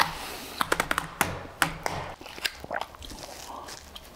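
Aluminium foil takeaway tray crinkling and clicking as its crimped card lid is prised off, in a run of sharp clicks that is thickest in the first two seconds and then thins out.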